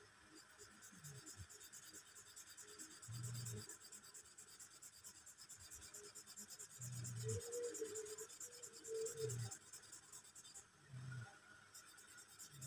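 Felt-tip marker pen scratching across paper in quick, repeated hatching strokes, faint throughout, with a few soft low thumps spread through it.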